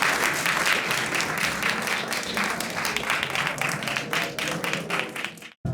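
Audience applauding, the clapping thinning out toward the end before cutting off abruptly.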